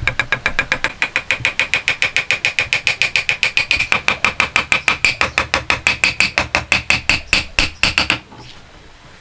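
A wooden mallet tapping rapidly on a hardwood crossbeam, about seven light blows a second, driving a Japanese lock joint down onto its post. The blows slow over the last second and stop about eight seconds in.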